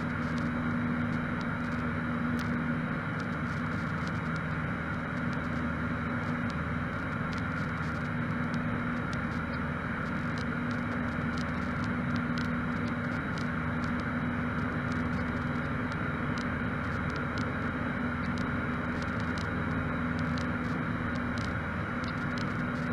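Cabin drone of a Cessna 152's Lycoming O-235 four-cylinder engine and propeller in steady cruise, a constant low hum over a hiss of airflow.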